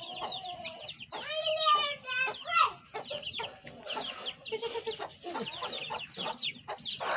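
Chickens clucking, with many quick short calls throughout and one louder, drawn-out call lasting about a second and a half, starting a little after a second in. A brief burst of noise comes at the very end.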